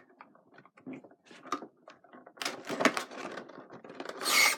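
Funko Pop figure being taken out of its cardboard box and plastic insert: a string of small clicks, taps and rustles of packaging, with a louder crinkling rustle about four seconds in.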